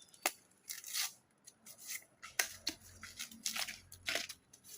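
Bamboo shoot being cut into or broken apart: a series of irregular crisp snaps and tearing crunches.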